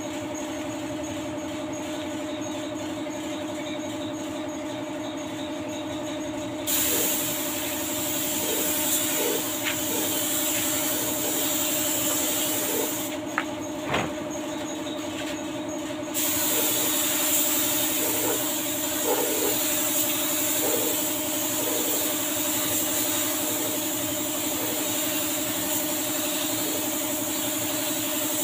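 A compressed-air paint spray gun hissing as it sprays the car body. It sprays in two long passes with a pause of about three seconds midway, over a steady low hum from the shop's air supply.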